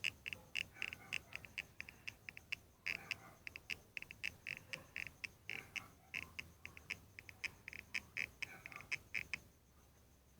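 Quick run of small bubbly pops and clicks from a person's eyelid as it is lightly touched, about four a second, stopping about a second before the end.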